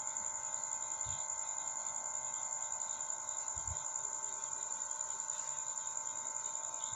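Steady background noise: a continuous high-pitched trilling tone with a faint even hum beneath it, and two faint low thumps about one and three and a half seconds in.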